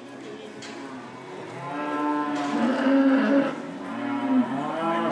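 A cow mooing: one long call about two seconds in, and a second call starting near the end.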